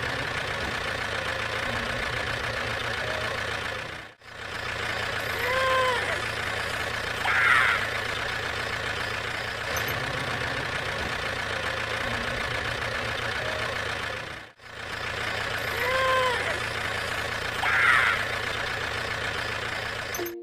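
Tractor engine running steadily, with a short squeal and a brief chirp every few seconds. The sound cuts out for an instant about four seconds in and again near the end, then repeats identically, like a looped recording.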